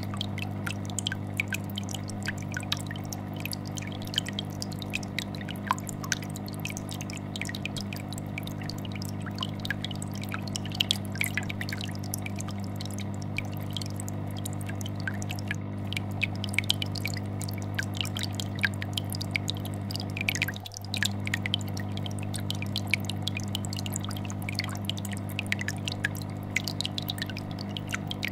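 Aquarium air bubbler sending up a continuous stream of bubbles that pop and plink at the water surface, over the steady low hum of a vibrating fish tank filter.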